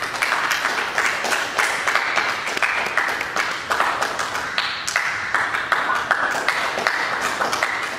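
Audience applauding: many hands clapping together in a dense, steady patter.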